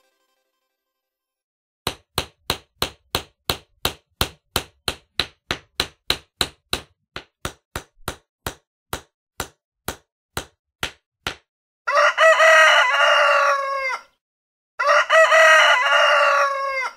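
A quick series of about thirty sharp knocks, roughly three a second, followed by two rooster crows of about two seconds each.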